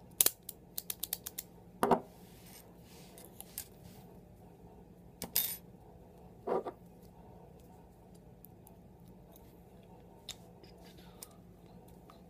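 Laminated steel padlock being handled, its metal parts clicking and clacking: a quick run of sharp clicks in the first second and a half, then single louder clacks about two, five and a half and six and a half seconds in, and only a faint tick after that.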